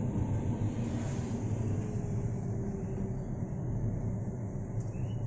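Steady low engine and road rumble inside a moving car's cabin at low speed.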